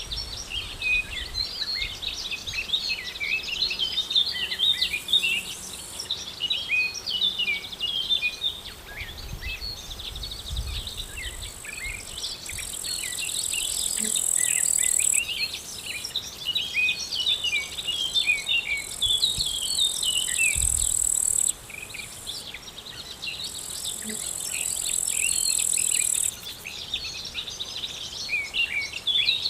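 Many small birds chirping and twittering together. Over them, an insect's high-pitched trill swells, runs for about three seconds and stops abruptly, several times over.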